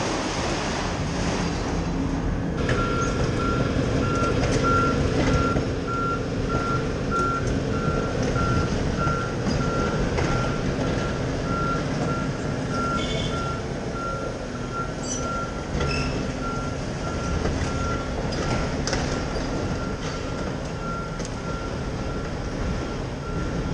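Volvo high-reach demolition excavator's movement alarm beeping in an even, steady run starting a couple of seconds in, over the machine's engine running. A few scattered knocks of debris sound along with it.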